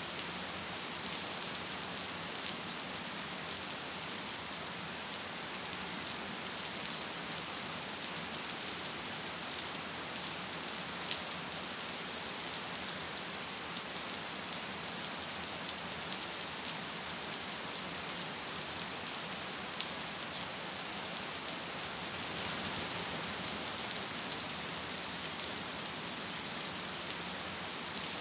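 Gentle, steady rain falling: an even hiss with a few faint drop ticks.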